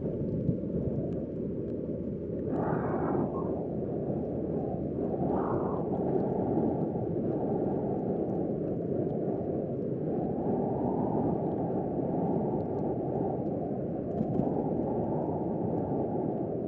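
Strong wind buffeting the microphone, a steady low rumble with a few stronger gusts in the first several seconds.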